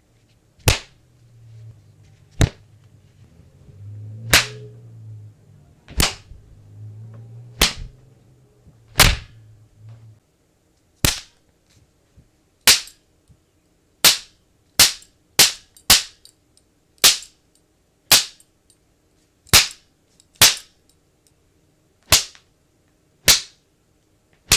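Whip-slap sound effect: about twenty sharp cracks, one every second or two, coming faster for a few seconds in the middle. A low hum runs underneath and stops about ten seconds in.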